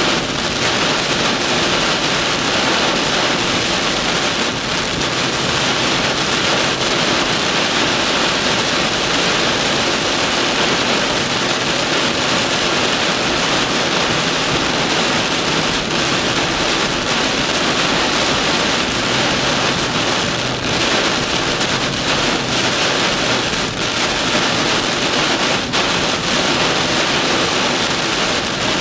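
Heavy rain beating on a car's roof and windshield, heard from inside the cabin as a steady, dense hiss.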